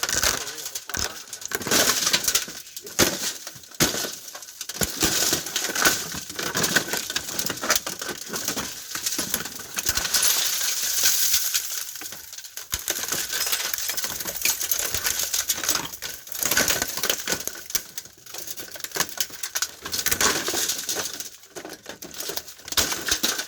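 Metal and plastic parts of a plasma TV clattering, clinking and scraping as it is pried and pulled apart by hand, with dense irregular knocks throughout.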